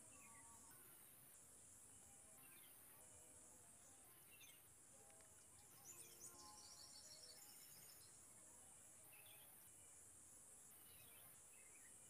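Faint outdoor ambience. A high insect buzz pulses on and off about once a second, with scattered faint, short falling bird chirps and a brighter burst of chirps about six seconds in.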